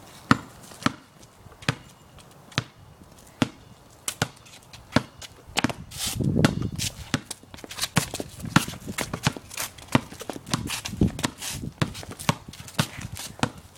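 A basketball dribbled on a concrete driveway: sharp bounces about once a second at first, coming faster and more irregular after about 6 seconds as the dribbler is guarded.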